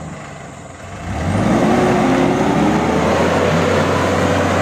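A heavily loaded truck's diesel engine, quieter for the first second, then revving up and rising in pitch before holding at a high, steady level under load as the truck strains to climb out of a muddy rut.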